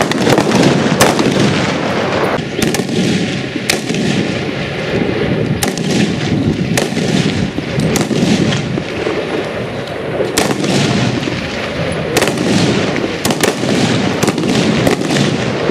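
Several Heckler & Koch G3A3 7.62 mm battle rifles firing single, semi-automatic shots from a firing line. The sharp cracks come irregularly, about one every second or two, over a steady background rush.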